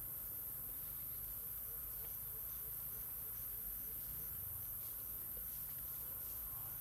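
Insects trilling in a steady, very high-pitched drone, with a run of short, quickly repeated chirps for about two seconds starting a second or so in.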